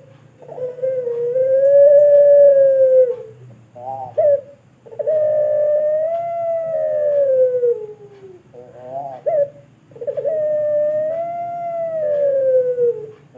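Puter pelung (domestic collared dove) cooing: three long drawn-out coos of about three seconds each, each swelling slightly and then sliding down in pitch at its end. Short rolling, stuttered notes come between them.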